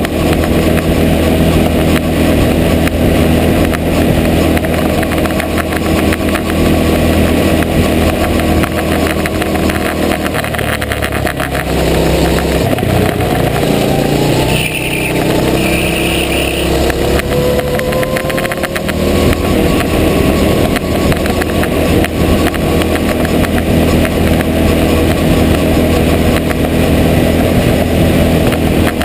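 Go-kart engine running hard at high revs, recorded from a camera on the kart itself. About ten seconds in the revs drop and then climb again through a corner, settling back to a steady pitch for the rest of the run.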